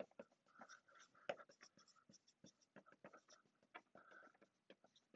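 Faint dry-erase marker on a whiteboard, scratching and squeaking in quick short strokes as letters are written out.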